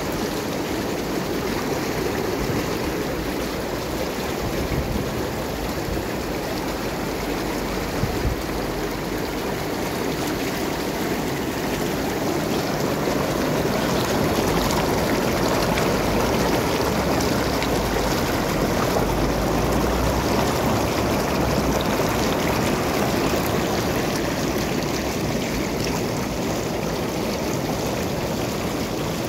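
Steady rushing and splashing of churned, frothing water around a sinking LEGO ship model in a pool, a little louder midway.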